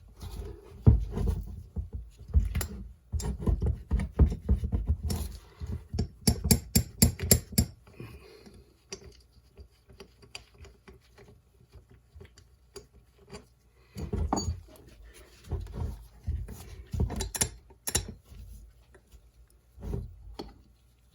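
Metal tools knocking, clicking and scraping against a two-stroke dirt bike cylinder while working a stuck, crusty power valve loose. The sounds come in irregular clusters, with a quick even run of about six clicks a second partway through and a quieter spell in the middle.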